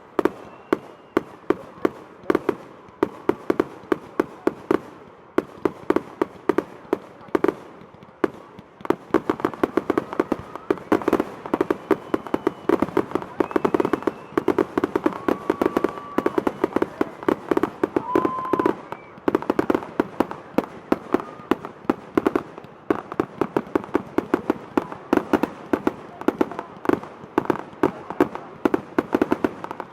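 Fireworks going off in a rapid, unbroken stream of sharp pops and bangs, several a second. A few short whistling tones come in past the middle.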